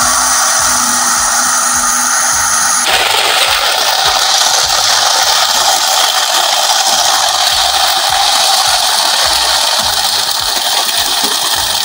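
Electric kitchen blender running at full speed, churning a liquid mint drink in its jar. About three seconds in, its steady whine gives way to a broader, louder whir.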